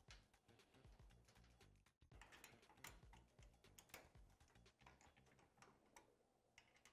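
Very faint, scattered clicks of bolts, nuts and a small hand tool being worked on an aluminium roof rack's hardware, over near-silent room tone.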